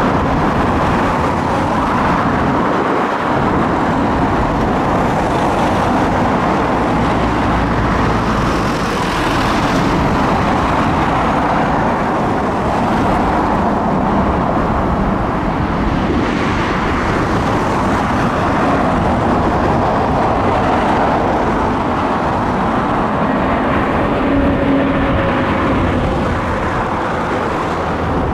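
Airbus A321neo's CFM LEAP-1A turbofan engines on approach to land: a loud, steady jet rush, with a faint falling whine near the end as the airliner comes close.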